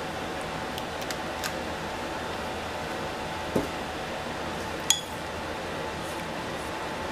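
Kitchenware clinking: a few light clicks, then a knock about three and a half seconds in and a sharp, ringing clink of glass or china about five seconds in, over a steady background hum.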